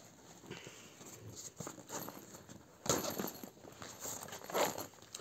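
Rustling of a nylon school backpack being handled while its pockets are opened, with two louder rustles, about three seconds in and again near the end.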